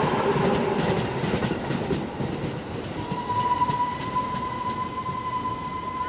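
Tobu 10000 series electric train rolling past as it pulls into the station. Its wheels clack over rail joints in the first couple of seconds, and a steady high squeal sets in about halfway through.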